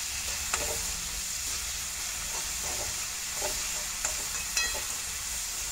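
Chopped onions and freshly added tomatoes sizzling steadily in hot oil in a pan, stirred now and then with a spatula that gives a few soft knocks and a short run of quick clicks near the end.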